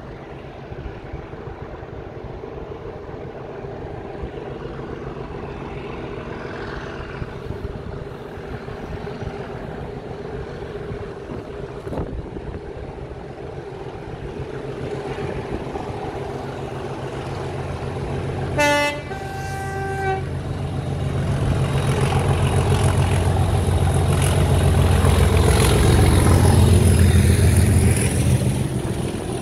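A Class 37 diesel locomotive's English Electric V12 engine drawing steadily closer and growing louder. About two-thirds in it gives a two-note horn blast: a short first note, then a slightly longer second. The engine is loudest as the locomotive passes close by near the end, followed by the rumble of the loaded ballast hopper wagons rolling past.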